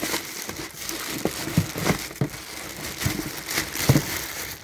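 Packaging crinkling and rustling as it is handled and unwrapped, with irregular sharper crackles.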